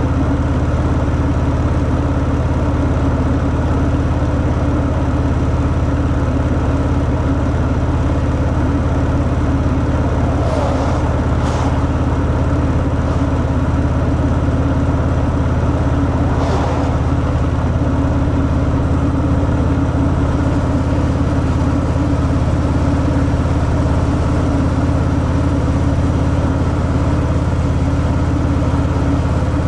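Harley-Davidson Fat Boy's V-twin engine with its stock exhaust, running steadily at an unchanging engine speed with no revving.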